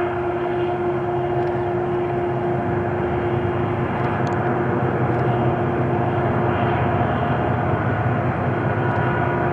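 Diesel-electric freight locomotives working a train: a steady engine drone with a held hum, slowly growing louder as the train approaches.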